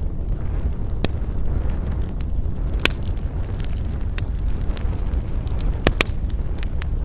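Wood fire burning: a steady low rumble with sharp crackles and pops scattered through it, the loudest a quick pair about six seconds in.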